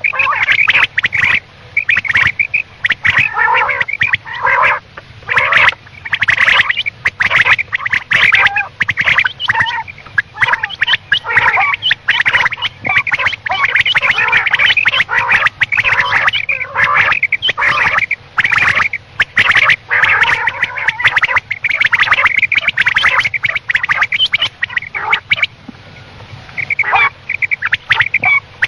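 Quail calling: many rapid, overlapping calls with scarcely a pause, thinning out briefly about 25 seconds in.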